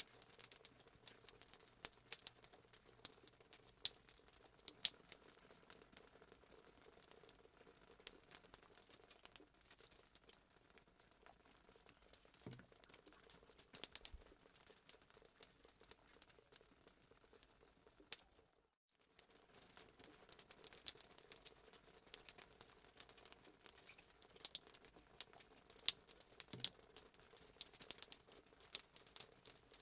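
Faint, steady crackling and popping of a fireplace sound effect, a dense scatter of small sharp snaps over a low hiss, with a brief gap partway through.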